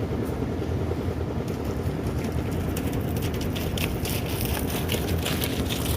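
Engine running steadily with a low, pulsing drone, overlaid by scattered sharp clicks and clatter.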